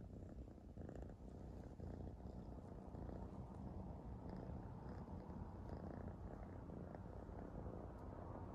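Domestic cat purring in a low, steady rumble while being stroked on the head.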